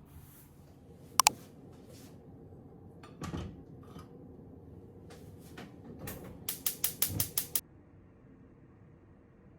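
Light clicks and taps of small objects at a desk: a sharp double click about a second in, a few scattered taps, then a quick run of about eight clicks near the end, like keys being pressed.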